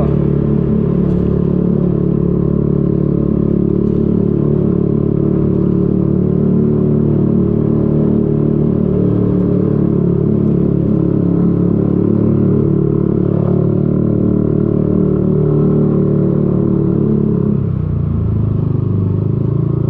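Yamaha Aerox 155 scooter's single-cylinder engine pulling steadily up a steep alley under load, with the rider's mic close to the bike. The engine note drops near the end as the throttle eases.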